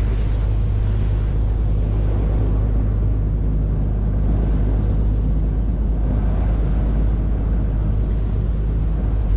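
River cruise boat's engine running steadily with a low, even drone.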